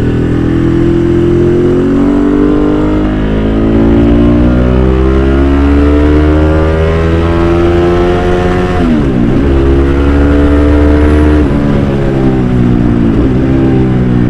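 Sportbike engine pulling hard on the road, heard from the bike itself. The pitch climbs steadily for about nine seconds, drops sharply at a gear change, then climbs again.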